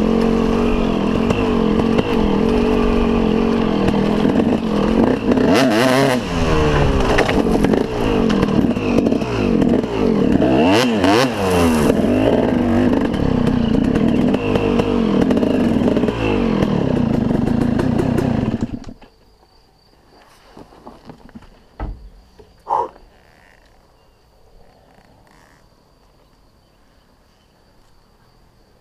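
KTM SX 250 two-stroke motocross engine running and revving up and down as the bike is ridden, rising and falling in pitch. About two-thirds of the way through it stops suddenly, leaving only a few faint knocks and clicks.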